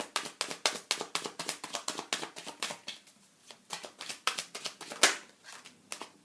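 Tarot cards being shuffled by hand: a fast run of soft card clicks for about three seconds, then slower, with one sharper slap about five seconds in.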